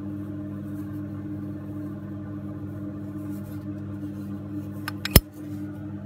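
Zippo 29489 black matte windproof lighter's hinged lid flipped open: a faint click and then one sharp, loud metallic clink about five seconds in. Steady background music runs underneath.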